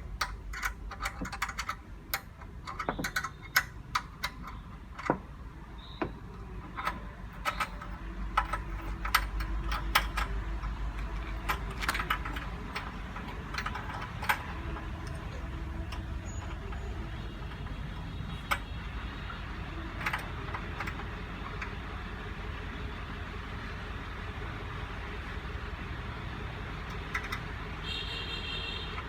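Kia Morning's engine idling steadily, with a scatter of sharp clicks and knocks from parts being handled and fitted, thickest in the first half.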